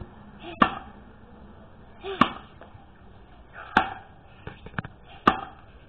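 An axe chopping into a log: four sharp strikes about a second and a half apart, with a couple of lighter knocks between the third and fourth.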